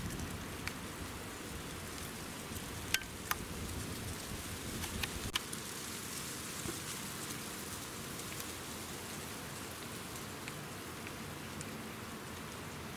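Steady woodland hiss with no distinct source, broken by a few sharp clicks about three seconds in and again about five seconds in.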